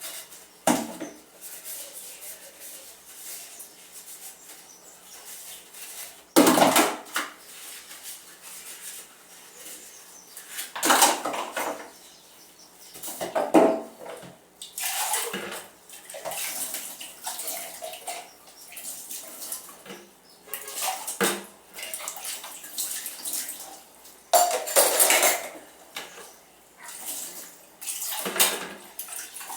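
Dishes and cutlery being hand-washed in a basin: plates and utensils clinking and clattering against each other with water sloshing, and several louder clatters scattered through.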